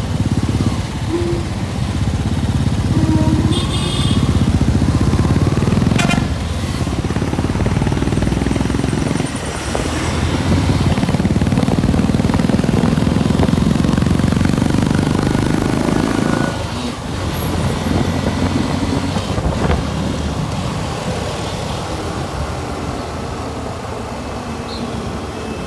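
Motorcycle riding noise: a heavy low rumble of engine, road and wind on the microphone. It swells and dips, easing off about two-thirds of the way through.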